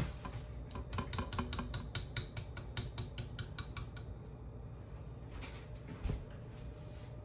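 Metal whisk clicking rapidly and evenly against the sides of a stainless saucepan as brown butter frosting is whisked, about five clicks a second for a few seconds, then a couple of soft knocks.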